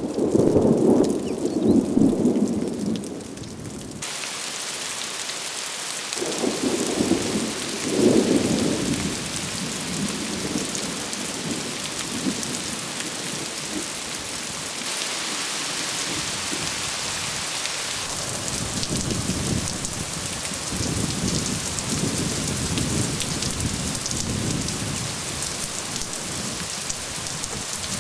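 Thunderstorm: a loud roll of thunder, then the steady hiss of heavy rain begins suddenly about four seconds in. Further rolls of thunder rumble under the rain, and the rain grows heavier for a few seconds midway.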